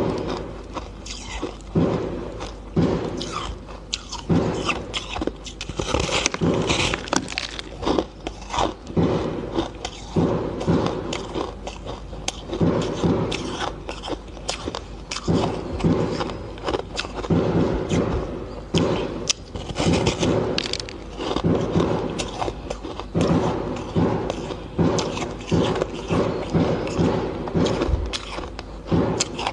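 A person biting and chewing a slab of crunchy coloured ice: a steady run of crackling crunches in bursts roughly once a second.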